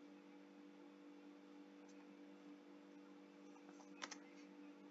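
Near silence with a faint steady hum, broken about four seconds in by one short, sharp click at the computer as the editing cursor jumps to a new line.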